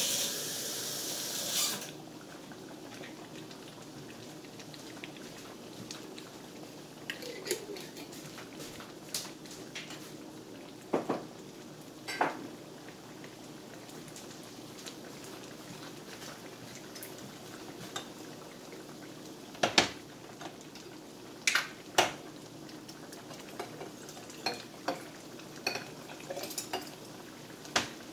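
Thick tomato meat sauce simmering in a skillet: a low bubbling hiss with scattered sharp pops as thick bubbles burst. The hiss is louder in the first couple of seconds.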